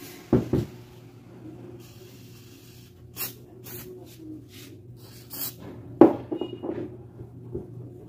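Mallory fan motor, switched on with its shaft seized in the bushing, humming steadily at mains pitch without turning freely. Penetrating-oil spray hisses onto the shaft in short bursts, with a few handling knocks near the start and about six seconds in.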